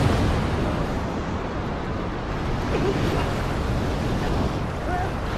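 Ocean surf: a wave breaking and foaming water rushing, a steady noisy wash.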